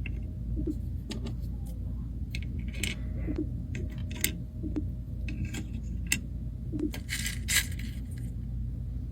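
Small plastic toy dishes and figures clicking and tapping as they are handled and set down on a table by hand, with a short scrape about seven seconds in, over a low steady room hum.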